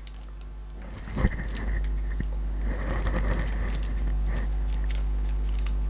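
Handling noise as a small packaged HDMI angle adapter is turned over in the hands: scattered small clicks and crackle over a steady low rumble that starts about a second in.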